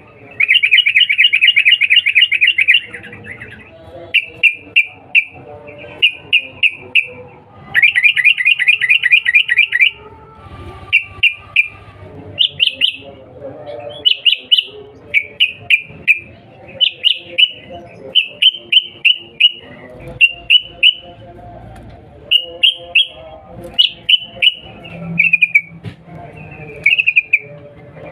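Yellow-vented bulbul (trucukan) calling: short bubbly 'cuk cuk' notes in quick groups of three or four, repeated all through, with two longer fast rattling trills, one starting about half a second in and another about eight seconds in.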